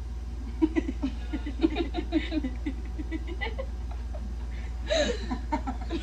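A person laughing in short, quick bursts for about three seconds, then a single falling vocal cry about five seconds in, over a low steady hum.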